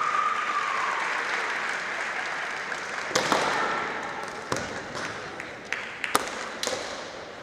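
Kendo fencers' long, drawn-out kiai shouts filling the first half and slowly fading, with three sharp cracks from the bout's shinai strikes and footwork on the wooden floor, the loudest about three seconds in and about six seconds in.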